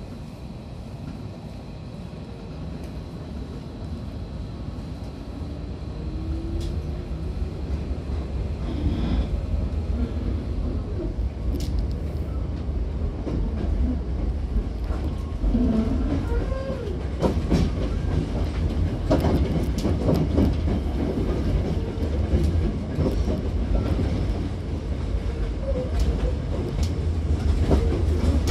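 Hankyu 7000-series electric train heard from inside the car as it pulls away and gathers speed: a motor whine rises in pitch over the first several seconds while the running rumble grows louder. The wheels then clatter over rail joints, with a short squeal or two.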